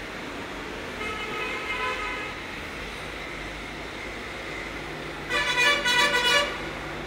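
Vehicle horns honking: a shorter honk about a second in, then a louder honk around five seconds in, sounded in quick pulses, over a steady low background hum.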